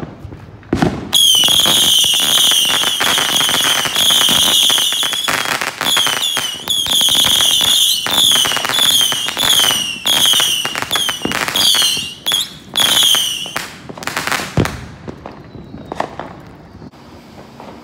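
A ground firework going off: a rapid run of shrill whistles, each sliding slightly down in pitch, over steady crackling for about twelve seconds. A sharp pop comes just before it starts and another about a second after it stops.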